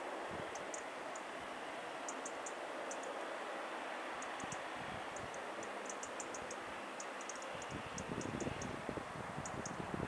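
Bombardier Dash 8 Q400 turboprop engines and propellers running during the landing roll, heard as a steady rush. Faint high ticks are scattered through it, and wind buffets the microphone about eight seconds in.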